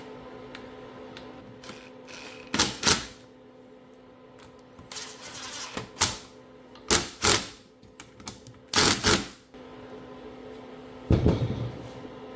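Sharp clacks and knocks in irregular clusters as steering-rack parts and hand tools are handled and fitted, over a steady low hum.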